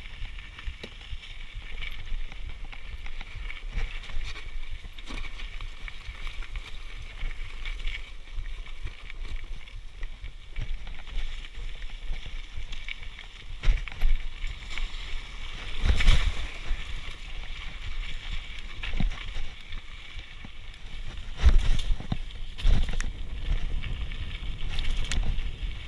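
Mountain bike riding down a rocky dirt trail: tyres rumbling over stones and gravel and the bike rattling, with wind rushing over the chest-mounted camera's microphone. Several louder knocks from bigger bumps come in the second half, the strongest about two-thirds of the way through.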